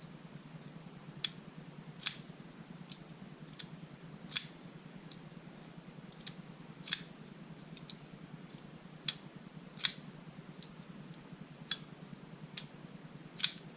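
Eafengrow EF66 ball-bearing liner-lock folding knife, flicked open and snapped shut over and over. About a dozen sharp metallic clicks come at irregular intervals of roughly one a second as the blade swings and locks.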